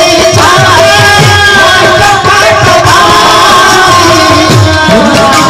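Kirtan music: large two-headed barrel drums (khol) played in a busy rhythm, their bass strokes sliding down in pitch, under a singing voice and sustained melody.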